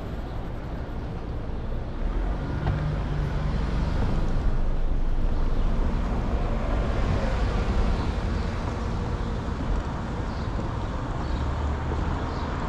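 Steady city traffic and road noise heard from a moving bicycle, louder for a few seconds in the middle.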